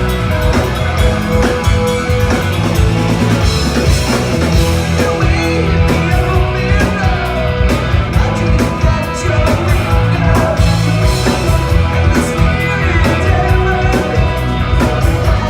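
Rock band playing loudly and without a break: electric guitar, bass and drum kit.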